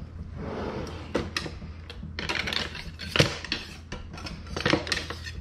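A wooden kitchen drawer sliding open, then knives and metal utensils clinking and clattering as a hand rummages through the drawer's knife block and tool slots.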